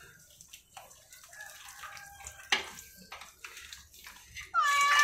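Faint sloshing and light splashes of warm bath water as a cat is washed, with one sharper splash about two and a half seconds in. Near the end the cat starts a loud meow.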